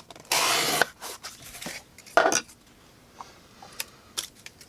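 Folding knife blade slicing through cardboard: a long rasping cut about a third of a second in and a shorter one about two seconds in. Near the end come a few light clicks as the knife is handled.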